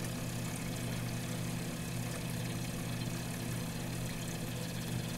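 Kitchen faucet running steadily into a pot of dried navy beans, filling it with water, over a steady low hum.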